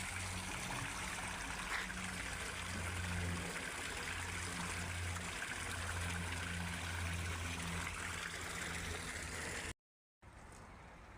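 Steady running water, like a stream or an inflow pouring into a pond, with a low hum underneath. It cuts off suddenly about ten seconds in, and a quieter background follows.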